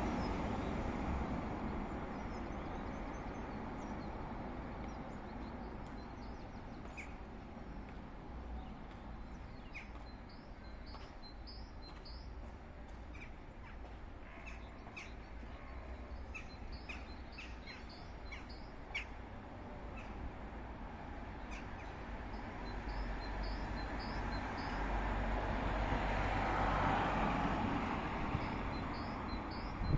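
Small birds chirping in short, high, repeated calls over the steady hum of street traffic, with a vehicle passing louder near the end.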